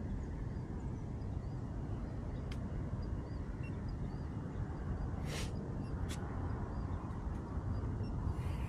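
Wind rumbling steadily on the microphone, with faint bird chirps. A few light clicks and a short rustle, about two, five and six seconds in, come from the small drone being handled.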